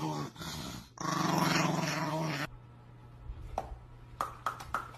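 A dog growling in long drawn-out stretches, with a short break about a second in, cut off abruptly about halfway through. After that comes a run of quick sharp clicks and taps.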